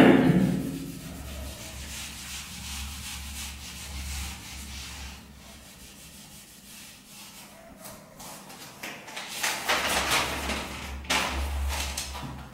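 Whiteboard being wiped clean by hand: rubbing strokes across the board, louder and faster near the end.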